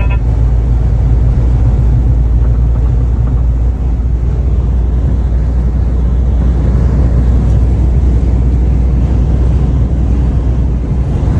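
Steady, loud low rumble with a hiss over it: a vehicle's noise heard during strong dust-storm winds.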